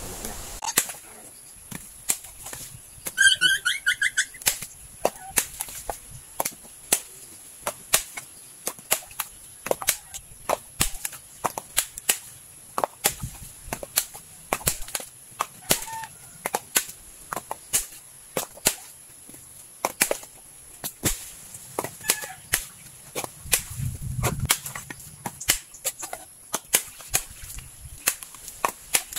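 A bolo striking husked coconuts again and again, sharp cracks about two or three a second, as the nuts are split in half for copra.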